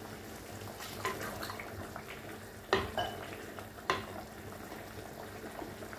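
A spoon stirring keema and potato curry in an earthenware handi, knocking against the clay pot a few times, over a faint steady sizzle from the curry cooking on the flame.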